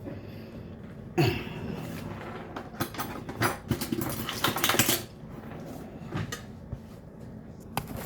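A fork clicking and scraping against a plate, with a louder run of scraping around four to five seconds in. A short low vocal sound comes about a second in.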